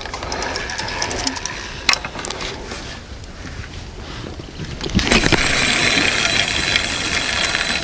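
Spinning reel on a rod being handled: a few light clicks and a knock, then from about five seconds a steady, hissing whirr as the reel handle is wound.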